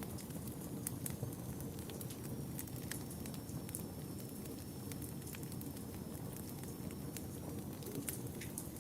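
Wood fire burning in a fireplace: a steady low rumble of flames with sharp crackles and pops scattered irregularly, several a second.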